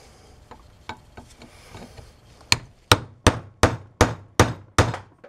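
Seven hard hammer blows, about three a second starting two and a half seconds in, each ringing briefly, on the rear bearing carrier of a 2001 Polaris Sportsman 500, driving out the worn, press-fit wheel bearing from the propane-heated housing. Before the blows there is only faint handling noise.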